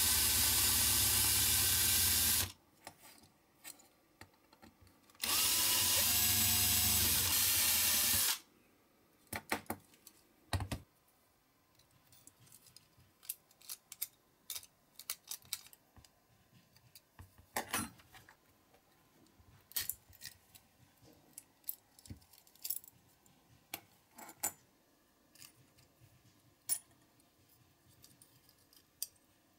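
Cordless drill drilling out the rivet of a diecast toy car's base, in two steady bursts of about three seconds each. After that come scattered small clicks and taps as the base, interior and body are pried apart.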